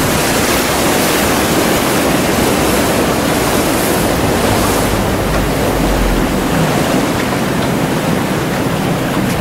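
Steady rush of wind buffeting the microphone together with water noise, with a stronger low rumble about five to six seconds in.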